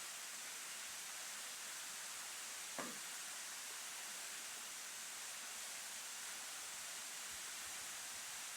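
Steady hissing rush of water from a waterfall, with one brief knock about three seconds in.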